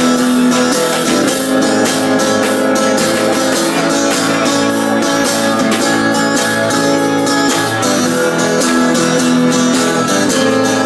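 Acoustic guitar strummed live with a drummer keeping a steady beat on drum and cymbal; an instrumental passage with no singing.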